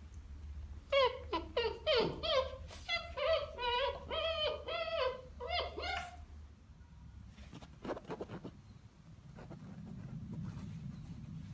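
Weimaraner puppy whining and yipping: a rapid string of short, high, rising-and-falling cries for about five seconds, followed by a few light clicks.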